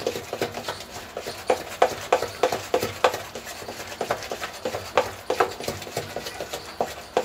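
Thick, coarsely ground moong dal batter being beaten by hand in a metal bowl: a rhythmic wet slapping, about three strokes a second. The batter is being whipped in one direction to beat air into it so it turns light and fluffy.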